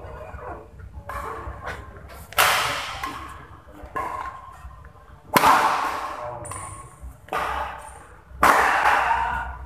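Badminton rackets striking the shuttlecock during a doubles rally: three hard hits about three seconds apart, each trailing off in the hall's echo, with lighter hits between them.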